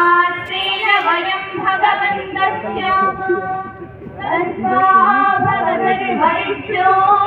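A group of girls singing together in long held notes, with a short dip in the singing about four seconds in.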